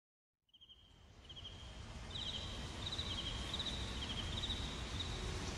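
Ambience of chirping insects, likely crickets: short pulsed chirps repeating at two slightly different high pitches over a low rumble, fading in during the first two seconds.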